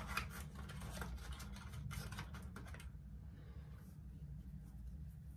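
Faint, irregular rustles and light clicks from hands applying serum to the skin, dying away after about three seconds, over a steady low hum.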